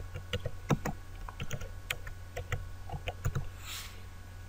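Typing on a computer keyboard: a run of irregular key clicks that stops about three and a half seconds in, over a steady low hum.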